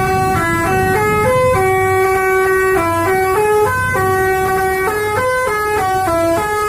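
Telolet basuri multi-tone air horn on a tour bus playing a melody: a run of short stepped notes with a few held longer ones, stopping near the end.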